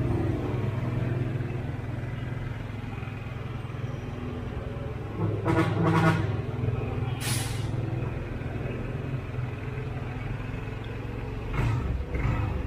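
Yamaha NMAX scooter's single-cylinder engine idling steadily during ECU tuning, with a short louder burst about five and a half seconds in and a brief hiss just after seven seconds.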